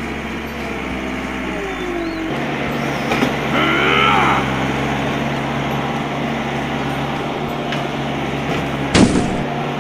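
Steady heavy-machine engine drone, a sound effect for a wheel loader at work, with a rising and falling whine about four seconds in and a sharp knock near the end.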